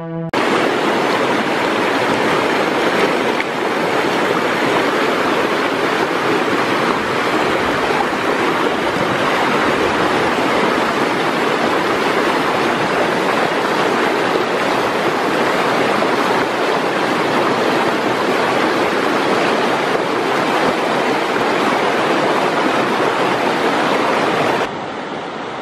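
Shallow, fast-flowing river rushing over rocks in white-water riffles: a steady, loud rush of water. It drops abruptly to a quieter hiss about a second before the end.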